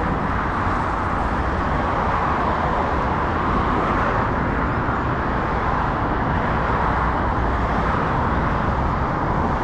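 Steady hiss and rumble of road traffic passing close by.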